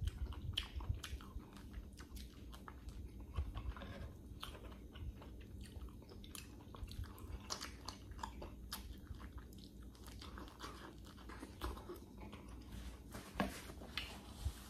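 A person biting and chewing orange slices off the peel close to the microphone, a run of short wet mouth clicks and smacks.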